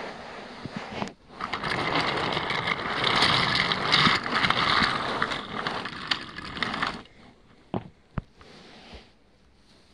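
Small toy train rolling along plastic toy track: its wheels give a dense rattling rumble that stops abruptly about seven seconds in. A couple of sharp plastic clicks follow about a second later.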